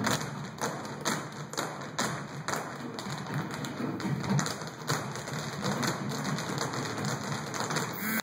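Irish step dancers in hard shoes striking the stage floor in unison: a rapid clatter of taps with a stronger stamp about twice a second, over quieter background music.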